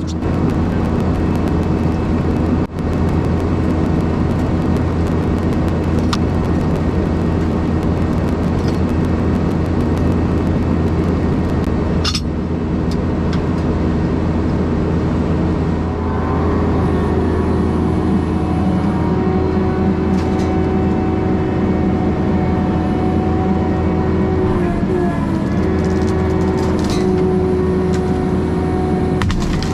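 Skid steer engine running steadily at high revs, driving a Brush Hound FH Series flail mower, with a steady whine over the engine's hum. The whine sags briefly about 25 seconds in.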